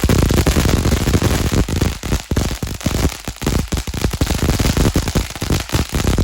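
Consumer firework fountain going off with a loud, dense crackle of rapid pops.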